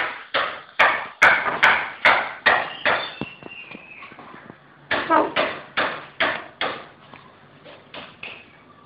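A rapid series of thumps or pats, about two or three a second, in two runs with a short lull between them, the second run growing fainter.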